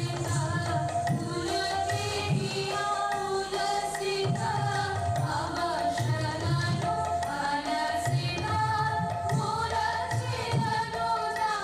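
Indian classical music accompanying a dance: a sung melody over a steady pattern of tabla strokes.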